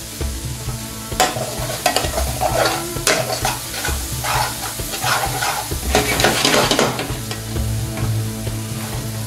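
Spiced curry base sizzling in a steel frying pan over a gas flame while the spices cook out, with a metal spoon stirring and scraping it in a run of strokes from about a second in to about seven seconds. A steady low hum runs underneath.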